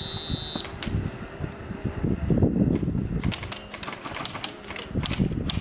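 Airsoft guns firing: strings of sharp clicking shots, densest from about three to five and a half seconds in, after a short high beep at the start.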